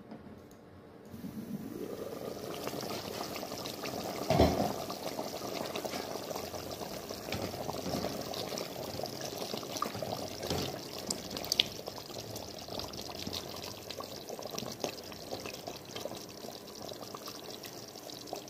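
Curry gravy bubbling on high heat in a pan while a silicone spatula stirs it. A knock about four seconds in is the loudest sound.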